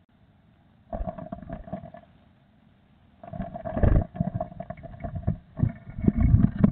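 Blue tit scrabbling and fluttering inside a wooden nest box close to the microphone: rumbling knocks, scratching and rustling in the nesting material. It comes in two bouts, a short one about a second in and a longer one starting about three seconds in.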